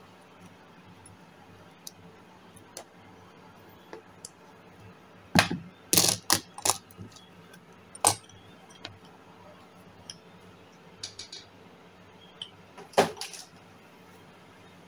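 Small hard objects handled and set down on a work mat: scattered clicks and clacks, with a cluster of louder knocks about five to seven seconds in, another at eight seconds and one near the end.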